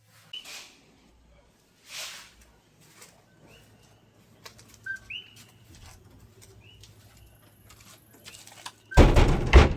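Birds chirping, a few short separate chirps, with soft rustling; near the end a loud burst of noise.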